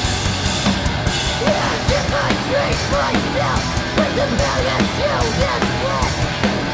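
Hardcore punk band playing live: distorted electric guitars, bass and drums at full tilt, with a shouted vocal over the band from about a second and a half in.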